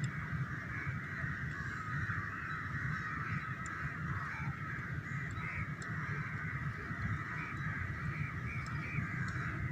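A steady background chorus of animal calls, unbroken throughout and slightly wavering, over a low rumble.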